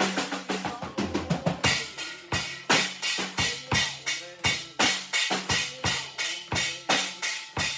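Drum kit played in a steady beat, bass drum and snare strikes about three a second.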